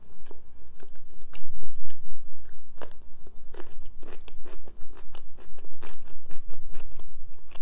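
Close-miked crunching and chewing of a small pickled gherkin, a steady run of crisp, wet crunches.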